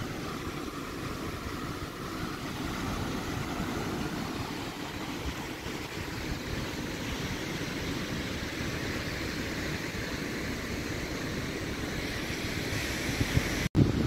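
Sea surf breaking and washing up the beach, a steady rushing wash with wind rumbling on the microphone underneath; the sound cuts out for an instant near the end.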